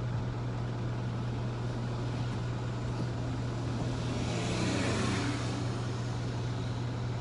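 Delivery truck's engine running with a steady low hum, heard from inside the cab. A rush of noise swells and fades about four to five seconds in.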